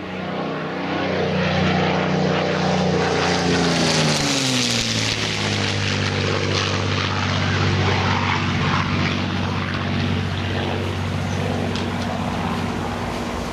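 Supermarine Spitfire flying low past, its piston engine drone dropping in pitch as it goes by about four seconds in, then running on steadily at the lower pitch as it draws away.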